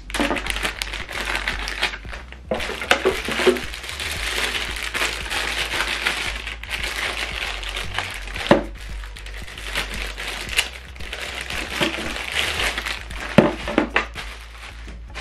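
Clear plastic packaging bags crinkling and rustling continuously as they are handled and opened to take cables out, with a few sharper crackles.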